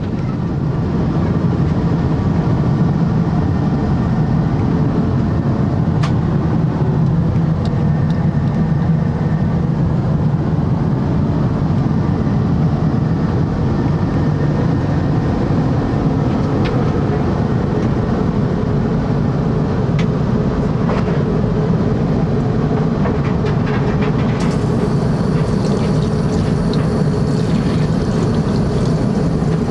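Steady loud rumble of a jet airliner heard from inside the passenger cabin: engine and airframe noise holding even throughout, with a few faint clicks. A high steady hiss joins about 24 seconds in.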